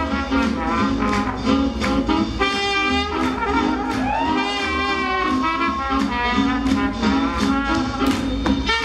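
Up-tempo swing jazz with brass horns playing over a steady beat; a horn line slides up in pitch about four seconds in.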